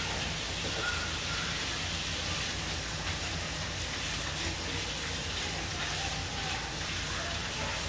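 Kitchen faucet running steadily into the sink while hands are washed.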